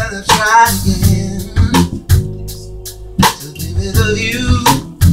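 Live band playing: sharp drum kit strikes over steady bass notes, with a wavering lead melody near the start and again about four seconds in.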